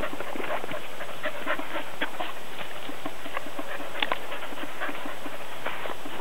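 Dry leaves crackling and rustling in light, irregular ticks as a dog walks about on them.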